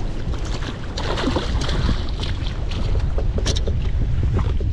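Wind buffeting the microphone aboard a small boat: a steady low rumble, with scattered short knocks and clicks over it.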